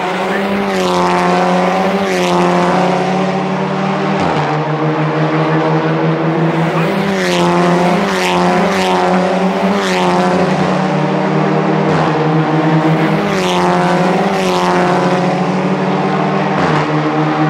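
Audi TT Cup race cars' turbocharged four-cylinder engines at full throttle. Their pitch rises through each gear and drops at each shift, about once a second, with a few sharp cracks, over a steady engine drone.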